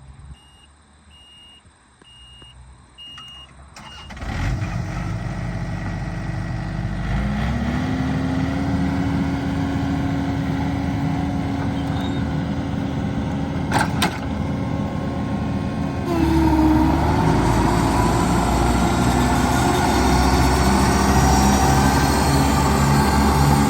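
Four short high warning beeps, then the John Deere 1600 Turbo Series II mower's turbo diesel engine is cranked and starts about four seconds in. It idles and then speeds up around seven seconds, with a sharp click near fourteen seconds. Around sixteen seconds the running sound gets louder and heavier, then holds steady.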